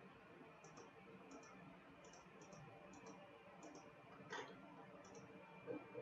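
Faint computer mouse clicks, irregular, about one or two a second, with one louder click a little past the middle, over near-silent room tone.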